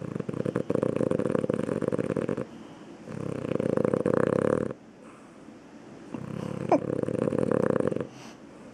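Sleeping dog snoring loudly: three long, rattling snores about three seconds apart. A brief rising squeak sounds in the middle of the last one.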